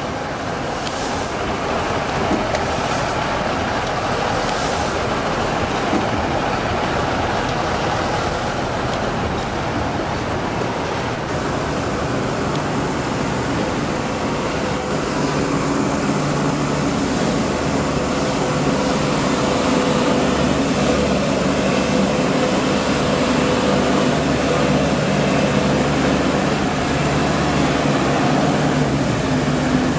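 A steady motor engine running under a constant rush of noise, its low hum growing stronger about halfway through.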